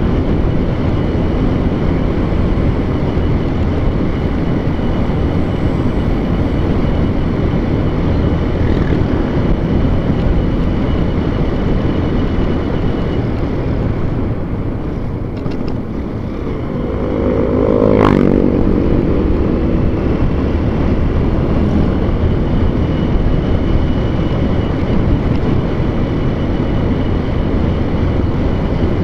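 Motor vehicle running along the road, with steady engine and road/wind noise. About two-thirds of the way through, the engine pitch rises for a second or two as it revs up, ending in one sharp knock.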